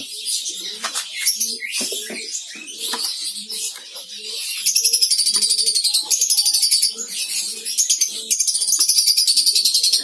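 A colony of lovebirds chattering with high, rapid calls, breaking into fast, even pulsing chatter from about five seconds in and again near the end, over the low cooing of pigeons.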